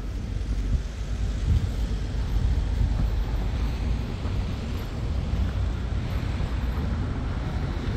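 Wind buffeting the phone's microphone: a steady, low, irregularly gusting rumble with a fainter hiss above it.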